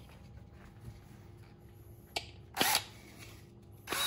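Power drill run in two short bursts, its whine rising and falling with each squeeze of the trigger: one about two and a half seconds in, another near the end. There is a light click just before the first.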